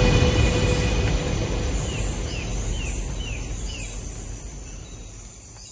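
Outro soundtrack fading out: a steady noisy wash dies away, with a bird chirping a quick run of about six short falling notes about two seconds in.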